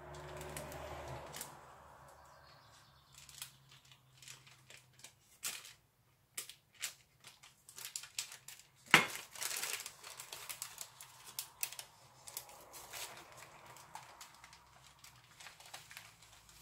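Baking paper rustling and crinkling as it is cut and peeled off a freshly baked sponge sheet, with scattered small clicks and one sharp knock about nine seconds in.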